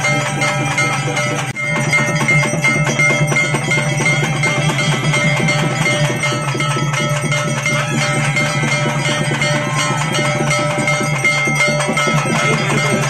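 Temple bells ringing rapidly and continuously, many ringing tones over dense strokes, as worship at the midday puja of a Sudalaimadasamy shrine reaches its climax; there is a brief dip about a second and a half in.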